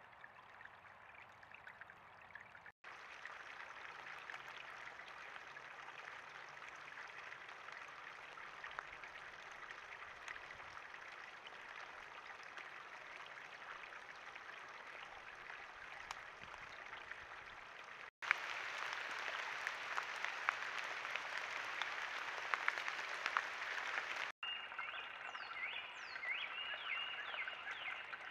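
Night ambience recorded by a trail camera's microphone: a steady, dense chorus of distant calling frogs with faint ticks, in several short clips cut together. In the last few seconds, closer short chirping calls stand out over the chorus.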